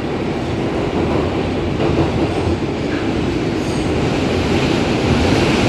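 New York City Subway R142A car running along the track, heard from inside: a steady, loud rumble of wheels and running gear with no door chime sounding.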